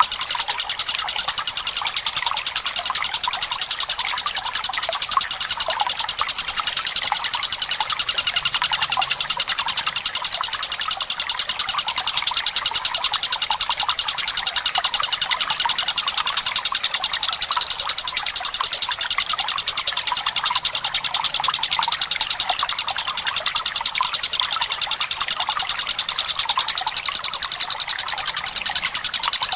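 Recorded Tengkek Buto bird song: a fast, continuous rolling trill that never pauses, over trickling water.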